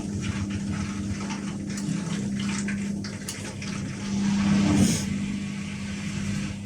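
Whirlpool FDLR70220S washing machine running with water, a steady motor hum under rushing and splashing water that swells louder about two-thirds of the way through.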